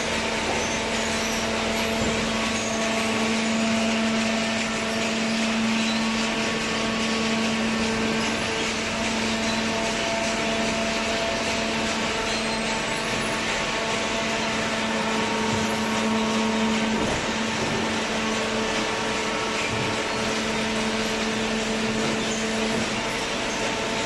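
Automatic horizontal hydraulic paper baler running, a steady mechanical drone with a sustained hum.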